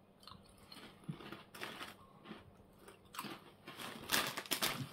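Martin's barbecue waffle-cut potato chips being bitten into and chewed, with crisp crunches coming irregularly and the loudest near the end.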